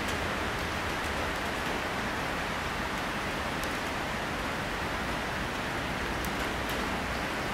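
Steady, even outdoor hiss, with a few faint ticks near the end.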